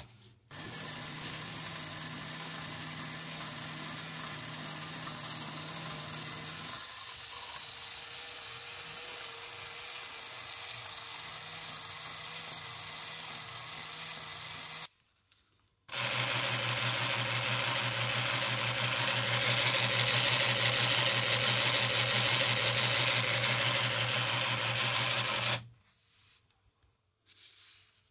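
Small fischertechnik electric gear motor running steadily as it turns a plastic reversing spindle. It runs for about fourteen seconds, with a shift in its tone about halfway, stops for a second, then runs again louder for about ten seconds before cutting off.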